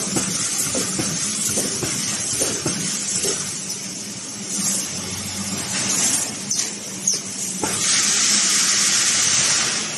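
Wire mesh resistance welding machine running: a steady electrical hum under repeated short knocks of the copper welding heads and constant hissing. A louder, sustained hiss starts about eight seconds in and stops just before the end.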